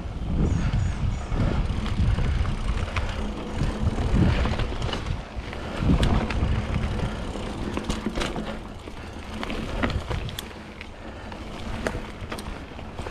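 Mountain bike rolling along a dirt singletrack: a steady low rumble from the tyres and riding, with many scattered clicks and rattles from the bike over bumps.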